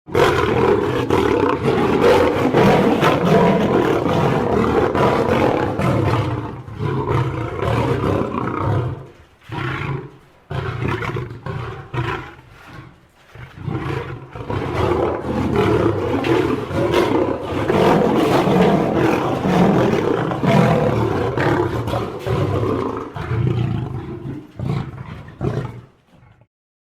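Lion roaring repeatedly. It is loud for the first eight seconds or so, breaks into quieter, choppy sounds for a few seconds, then comes back loud before fading out near the end.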